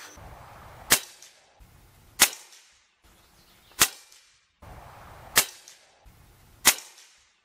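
Suppressed 350 Legend bolt-action rifle fired through a Banish 46 suppressor: five shots about a second and a half apart, each a sharp report with a short tail, with the background cutting in and out between them.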